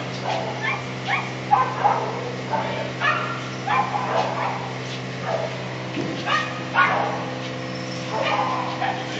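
Dogs in shelter kennels barking and yipping, with short, irregular barks throughout, over a steady low hum.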